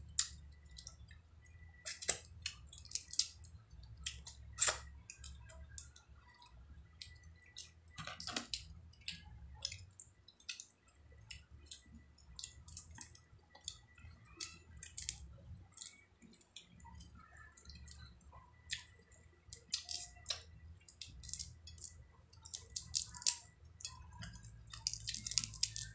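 Irregular clicks and small cracks of mud crab shell being broken and picked apart by hand, with wet squishing eating sounds, over a steady low hum.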